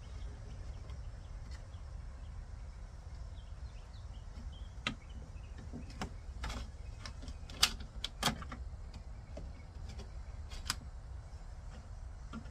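Scattered light clicks and knocks, about half a dozen, from handling parts inside an opened car door, the two loudest close together past the middle, over a steady low rumble.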